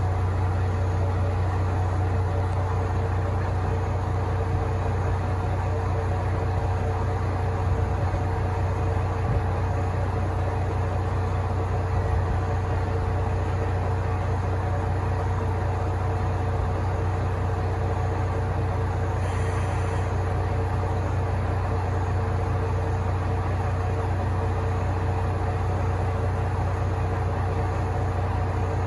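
A steady low machine hum with a fainter steady whine above it, unchanging throughout.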